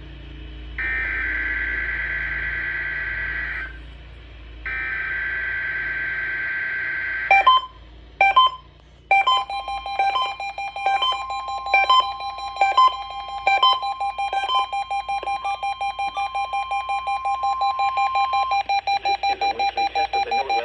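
NOAA Weather Radio SAME alert header: long bursts of shrill, buzzy digital data tone, each about three seconds, ending about seven seconds in. Then a run of electronic beeps over steady tones, the beeps coming faster and more evenly from about fifteen seconds on.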